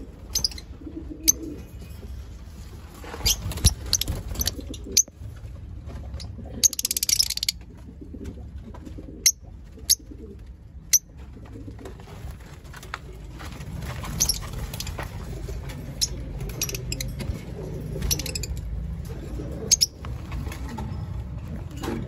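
Caged lovebirds giving short, sharp, high-pitched chirps at irregular moments, with a longer rasping burst about seven seconds in.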